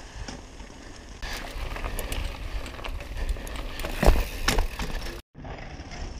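Mountain bike tyres rolling fast over a gravel fire road, a rough crunching rush with many small stone ticks that grows louder about a second in. Two heavy thumps around four seconds in as the lifted front wheel comes down. The sound cuts off abruptly near the end, then quieter rolling resumes.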